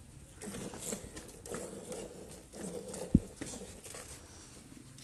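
Cow being hand-milked: milk streams squirting into a steel bucket of frothy milk in pulses about once a second. A single sharp low thump comes about three seconds in.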